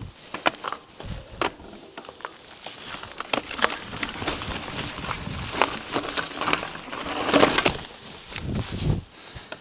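Mountain bike descending a rocky, leaf-covered dirt trail: tyres crunching over stones and dry leaves, with a dense clatter of knocks and rattles as the bike bumps over the ground, loudest about seven and a half seconds in.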